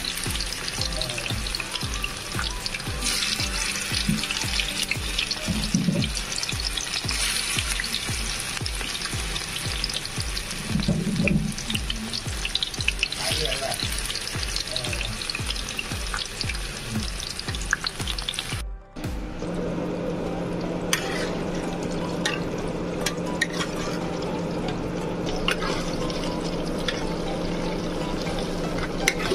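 Sizzling of hot mustard oil frying in a nonstick pan, under background music with a regular beat. About two-thirds of the way through, the sound cuts out for a moment and comes back as sizzling over a steady low hum.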